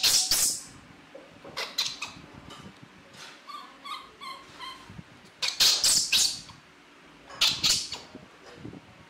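Baby monkey crying: short, high squeaky whimpers and several shrill cries, each about half a second long, with pauses between them.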